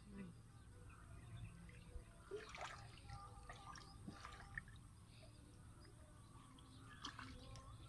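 Faint sloshing and dripping of muddy water as a man wades chest-deep and gropes by hand under a grassy bank, with a few brief small splashes about two and a half, four and seven seconds in.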